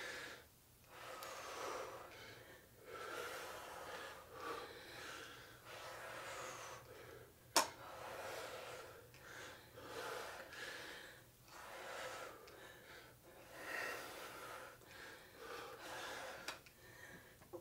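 Heavy breathing from exercise exertion, puffs in and out about once a second, with one sharp click about seven and a half seconds in.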